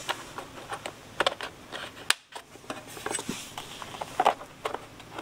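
A plastic fender liner and license plate bracket being pressed into place on a motorcycle's rear fender: scattered light clicks and scrapes of plastic parts being handled and seated.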